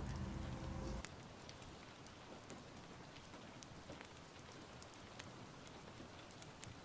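The waltz's final keyboard chord holds for about a second and cuts off. After it comes a faint ambience track: a soft hiss with scattered small clicks, like rain or a crackling fire.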